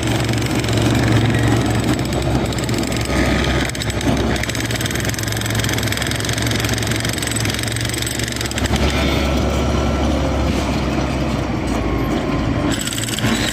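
Bulldozer's diesel engine running steadily, its note dropping lower about nine seconds in.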